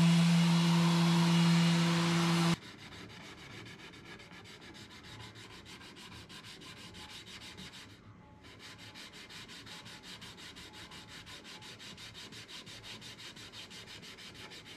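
A random-orbit sander runs with a steady hum on an ash board, then cuts off suddenly a couple of seconds in. After that comes the much quieter sound of hand sanding with a sheet of sandpaper, in quick, even back-and-forth strokes, with a brief pause about eight seconds in.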